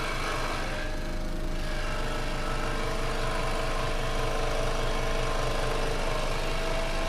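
Ryobi scroll saw running steadily, its motor and reciprocating blade making a continuous mechanical buzz.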